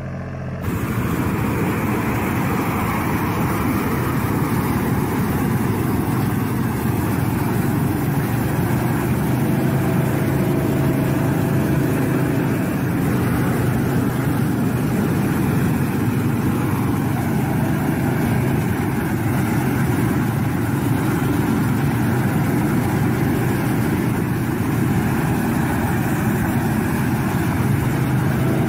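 Tractor pulling a flame weeder: the engine runs steadily, mixed with the continuous rushing noise of a row of gas burner flames. It starts abruptly less than a second in.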